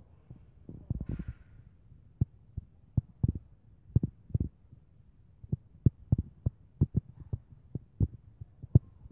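Irregular low thuds and bumps on the microphone, a few a second and uneven in strength, over a quiet background with no steady machine hum.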